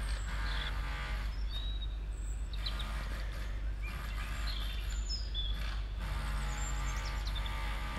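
Outdoor ambience of small birds chirping in short, high calls over a steady low rumble. A humming drone swells twice, near the start and near the end.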